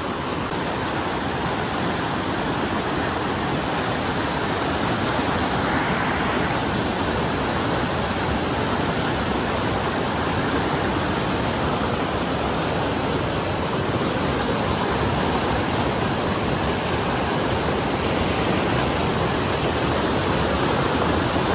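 Fast mountain river rapids rushing over boulders: a steady, unbroken whitewater noise.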